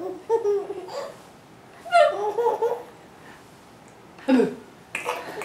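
A seven-month-old baby laughing in about four short bursts, the loudest about two seconds in.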